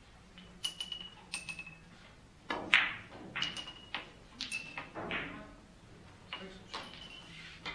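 Billiard balls clicking against each other again and again during play, many clicks with a short high ring and a few duller knocks, the loudest about two and a half seconds in.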